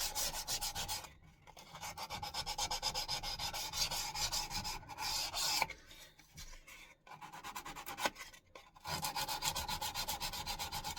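Abrasive scrubbing on the steel head of an old axe, cleaning the metal up for polishing. A fast, scratchy rasping, stopping briefly three times.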